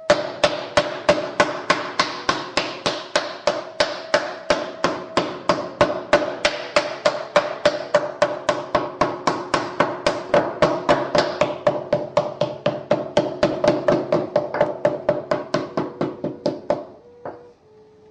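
Wooden mallet beating a slab of Yixing clay flat against a hardwood table, in quick even strikes about three or four a second that stop near the end. Steady background music sounds underneath.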